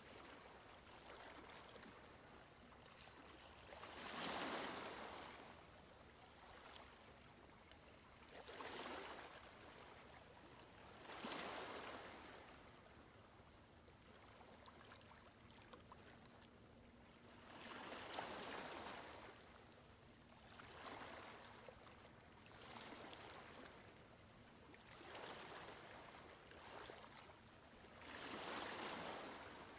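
Faint, soft swishes of a watercolour brush stroking paper, one every few seconds, over a quiet steady hiss.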